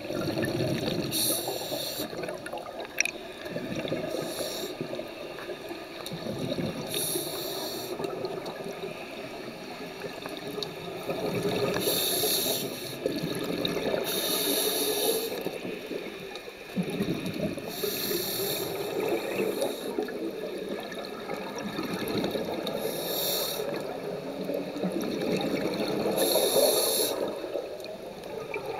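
Scuba diver breathing through a regulator underwater: a hissing inhale every few seconds, alternating with the bubbling of exhaled air.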